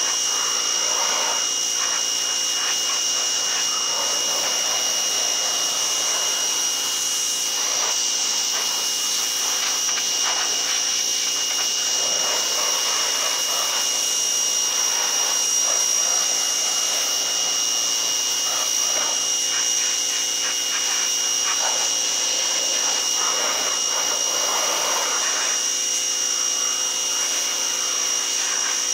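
Ryobi 1700 PSI electric pressure washer running steadily, its electric motor and pump giving a constant high whine. Over it is the noisy rush of the water jet spraying mildew off a wooden bench.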